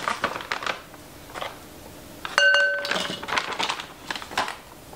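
Soft rustling and scraping from measuring baking soda out of its cardboard box. About halfway through there is one sharp clink that rings briefly, then more rustling as the box is handled.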